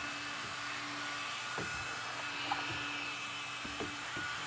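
Handheld vacuum cleaner running steadily with an even motor whine while it is passed over a workbench, with a few light clicks along the way.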